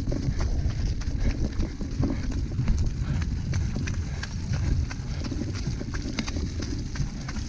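Cyclocross bike rattling and clicking over a bumpy course, with many irregular sharp knocks over a steady low rumble of wind and tyre noise on the microphone.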